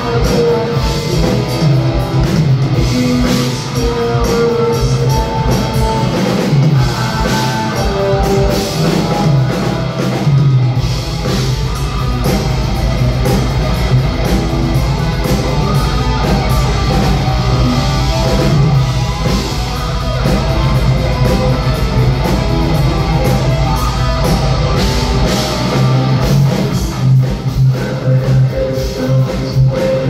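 Live progressive metal band playing loudly: distorted electric guitars, bass guitar and a busy drum kit, heard from the crowd.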